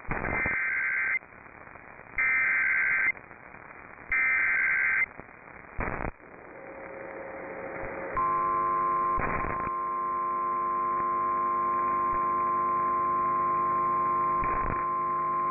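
Emergency Alert System header carried on a radio station: three bursts of SAME data tones, each about a second long and a second apart, announcing a National Weather Service severe thunderstorm warning. About eight seconds in, the long steady attention tone sets in, and a few brief crackles of static cut through.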